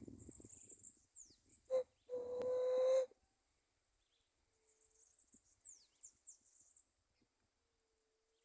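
Dove cooing: a short low note, then a loud, steady, drawn-out coo of about a second. Small birds chirp high and thin around it, with quick downward-sliding notes.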